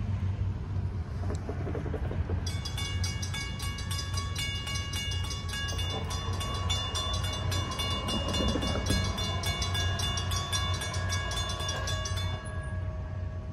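Railroad grade-crossing warning bell ringing in rapid, even strokes, starting about two seconds in and stopping shortly before the end as the crossing gate finishes coming down. A steady low rumble runs underneath.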